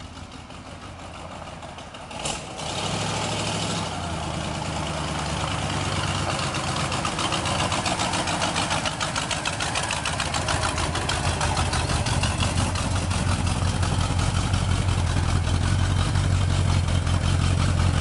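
1964 Lincoln Continental's big V8 idling steadily. It is faint for the first two seconds, then after a short sharp click about two seconds in it comes in strong, with a deep, even running note that grows gradually louder.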